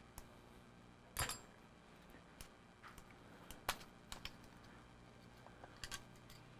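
Faint, scattered clicks and light knocks from hands working the parts of a disassembled Realistic TRC-200 handheld CB radio as its head section is worked loose; the two most distinct come about a second in and near the middle.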